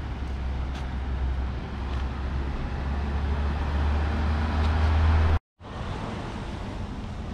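Motor vehicle running, a steady low drone with road noise that grows louder, then cuts off suddenly about five seconds in, leaving quieter outdoor background noise.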